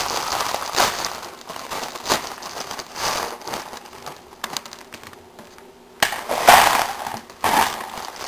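Plastic instant-ramen wrapper crinkling as it is opened and handled, with crushed dry noodle pieces rattling into a bowl. The rustles come in scattered bursts, go quieter a little past the middle, then come back louder near the end.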